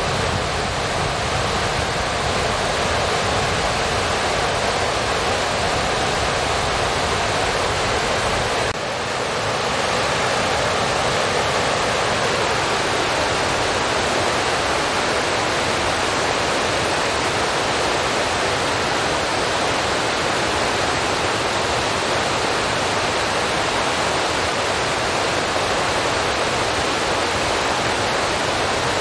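Steady rushing noise with no tone or rhythm. About nine seconds in it dips briefly and loses its deep rumble, then carries on higher and thinner.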